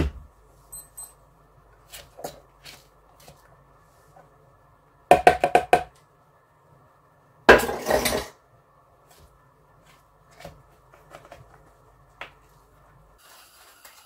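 Clinks and knocks of hard objects being handled, with a quick run of several clinks about five seconds in and a longer rattle around eight seconds.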